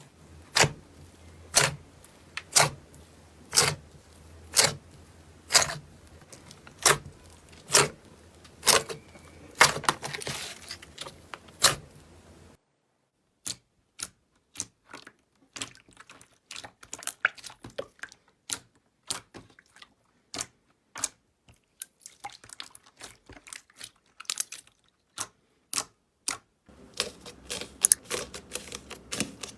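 Slime being pressed and played with, giving sharp popping clicks about once a second, then after a change partway through a quicker, irregular run of small crackling clicks.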